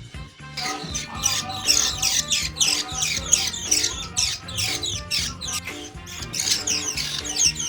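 Pet birds chirping, with many quick falling calls one after another, over background music with steady low notes.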